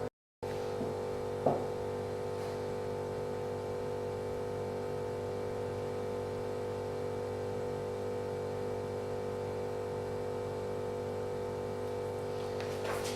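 A steady hum of several held tones that does not change, cut off briefly at the very start, with a single click about one and a half seconds in.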